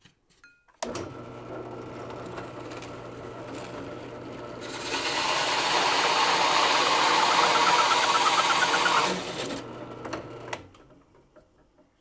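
A drill press motor switches on about a second in and runs steadily. From about five to nine seconds its hole saw cuts into plywood, much louder and rougher: the hole being finished from the second side to avoid tear-out. The motor then winds down near the end.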